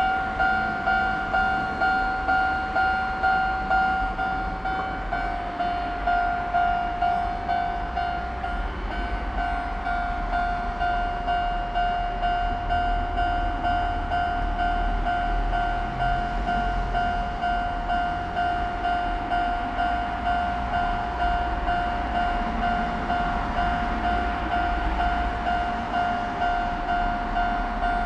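Japanese level-crossing alarm bell ringing its repeated electronic "kan-kan" ding, about two strokes a second, the strokes coming closer together after about eight seconds. Beneath it a Sanyo Electric Railway train rumbles past on the rails.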